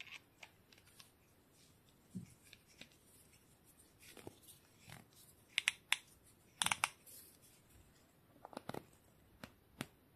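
Scattered small clicks and taps of tools and brake parts being handled while a hydraulic bike brake is bled, irregular, with louder clusters about halfway through.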